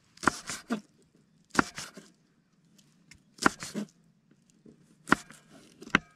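Broad-bladed kitchen knife chopping green chillies on a wooden cutting board: sharp knocks of the blade against the board, a short cluster every second or two.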